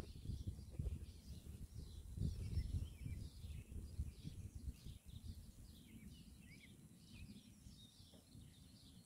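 Many faint, short bird chirps over a low rumble that is loudest in the first few seconds and then fades.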